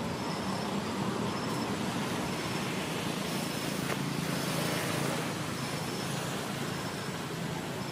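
Steady outdoor background noise, a low hum under a hiss, with a short high chirp repeating about once a second.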